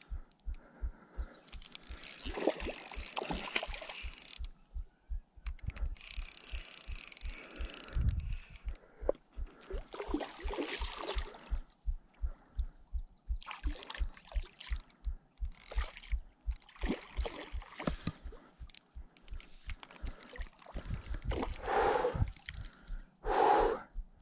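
Spinning reel cranked during a lure retrieve, its handle turning with a steady low ticking about four times a second, with several bursts of rushing noise over it.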